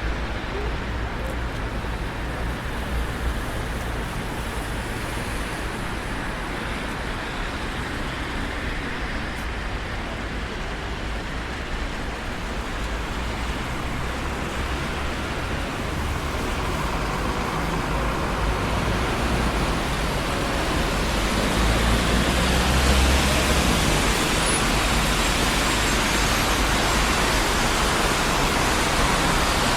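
Steady traffic noise from a busy city street: the continuous rumble and tyre hiss of passing cars, swelling gradually from about halfway through as heavier or nearer traffic passes.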